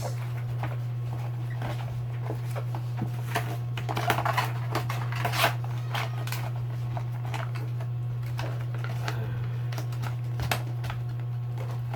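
Crinkling and clicking of wrapping and plastic lamp parts being handled, with a cluster of louder crackles about four to five and a half seconds in, over a steady low hum.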